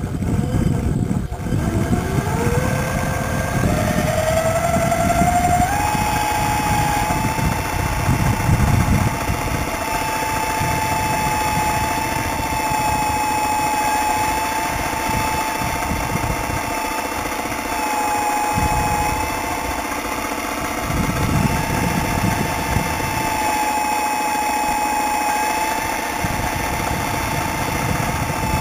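Radio-controlled miniature CAT 320 hydraulic excavator running: the hydraulic pump's whine rises in pitch over the first few seconds as it spins up, then holds steady with small dips now and then. Under it runs an uneven low rumble and rattle that swells and fades as the arm and turret move.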